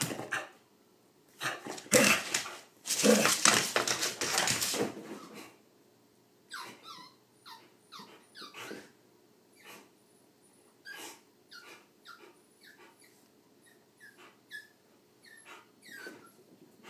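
Two dogs playing: a loud stretch of rough, growly play-barking about two to five seconds in, then a string of short, high yips and whimpers with small scuffles.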